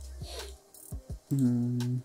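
Background electronic music: a low bass note and several deep drum beats, then a louder held synth note in the last second.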